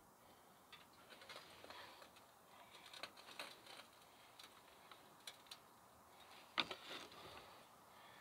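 Near silence with faint, scattered light clicks and taps, and one slightly louder click about six and a half seconds in: small handling noises from hands working around a pickup's bare front hub and brake rotor.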